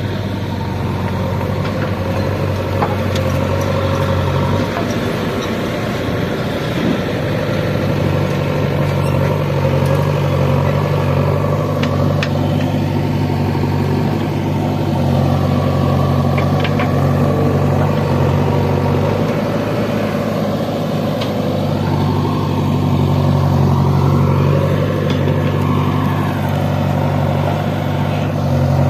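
Heavy diesel engine of a tractor or backhoe loader running steadily under way. Its engine speed steps up about five seconds in and shifts again about twenty seconds in.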